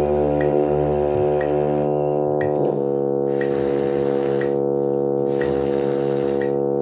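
A held keyboard-like drone chord with metronome clicks about once a second. Over it, brass mouthpiece buzzing on a low note until the chord changes about three seconds in.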